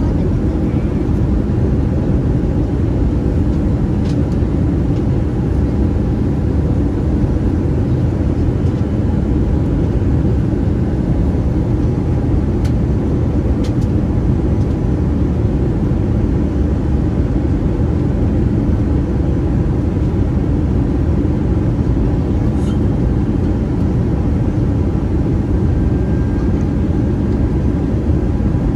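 Steady cabin noise of an Airbus A320-214 in flight, the drone of its CFM56 turbofans and the airflow over the fuselage heard from a window seat, with faint steady tones riding on it.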